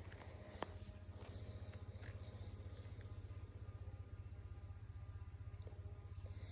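Pause in speech filled by a steady high-pitched background whine with a low hum beneath it, and a faint click about half a second in.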